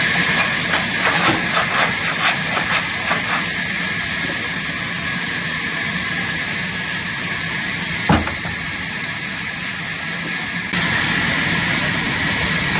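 Sawmill machinery running with a steady, loud hiss-like noise, with a run of light clicks in the first few seconds and a single sharp knock about eight seconds in.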